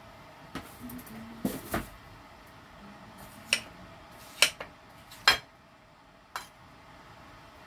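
Kitchen knife striking a plate while slicing watermelon: about seven sharp clinks at irregular intervals, the loudest a little after four and five seconds in.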